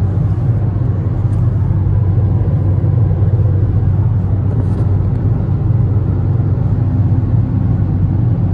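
Steady low rumble of a car moving at highway speed, heard from inside the cabin: tyre, engine and wind noise.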